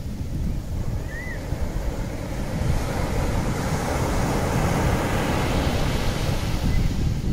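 Seaside sound: a steady rush of waves and wind that swells slightly after a couple of seconds, with two faint short high chirps, one about a second in and one near the end.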